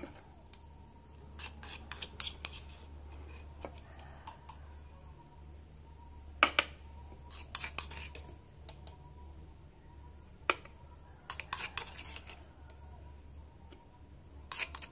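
A metal spoon scraping and clinking against a stone mortar and a china plate as pounded lemongrass-and-galangal paste is scooped out. The clinks and taps are scattered and come in small clusters, with the loudest about six and a half seconds in.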